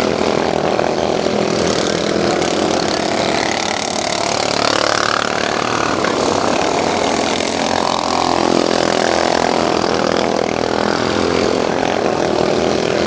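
Several racing lawn mower engines running hard, their pitch rising and falling and crossing over one another as the mowers pass by.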